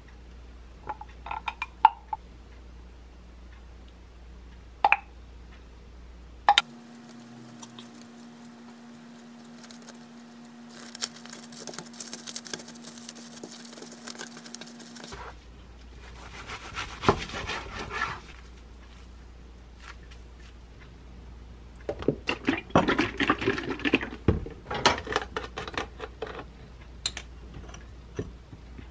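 Plastic cling film crinkling and rustling in several bursts as a tortilla wrap is rolled up tightly in it, the loudest stretch near the end; a few light taps and clicks come before.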